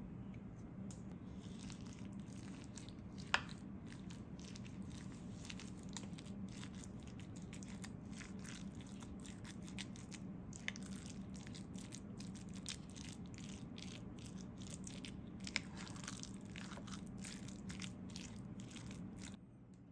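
A metal spoon stirring sticky cooked black glutinous rice with sugar and rice syrup in a bowl: a run of soft, wet scrapes and squishes, with a sharper clink of the spoon against the bowl three times.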